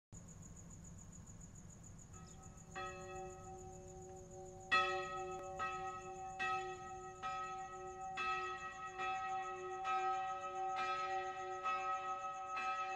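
Soft, bell-like chimes: sustained ringing notes begin a few seconds in and are struck again about once a second, each ringing on under the next and slowly growing louder, over a faint low hum.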